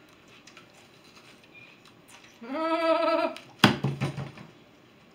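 A woman lets out a short, wavering cry of distress, about a second long, from the burn of biting into a raw onion. A sharp thump follows right after it.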